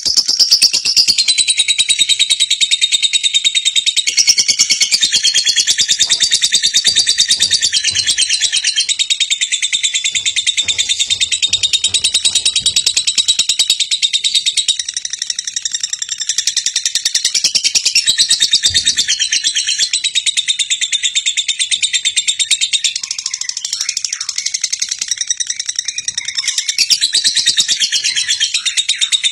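A dense, continuous chorus of many birds chirping rapidly, high-pitched and without a break.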